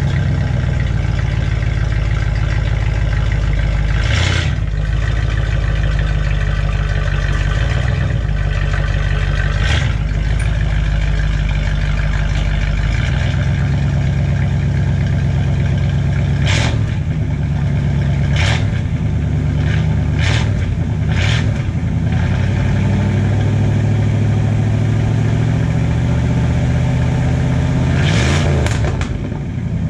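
A 1984 Dodge D150 pickup's engine running at idle through its exhaust, with a series of short, sharp throttle blips. One rev rises and falls near the end.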